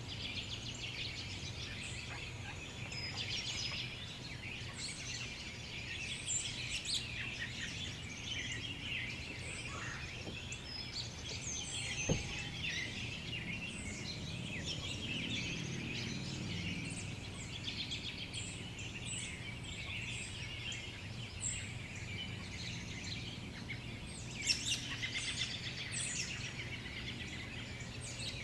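Birds chirping and calling in the woods, many short chirps overlapping without a break over a low steady background, with a couple of brief sharp clicks.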